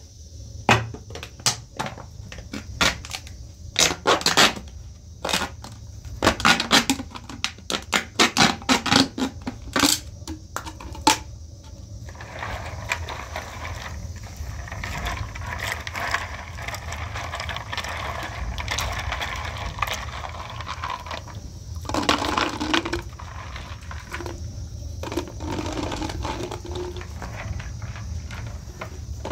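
Thin plastic water bottle crackling and snapping in many sharp cracks as it is cut open with a knife. Over the second half a softer, steady scraping rustle follows, with a louder spell about two-thirds of the way in.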